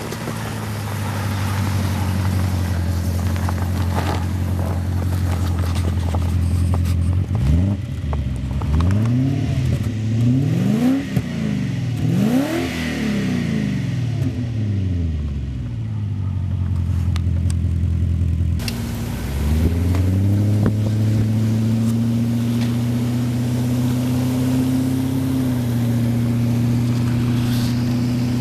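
BMW E34's M60 V8 engine idling, then revved in a series of quick blips that rise and fall before it settles back to idle. About two-thirds of the way through the sound breaks off briefly, then the engine rises to a steady, slightly higher running speed.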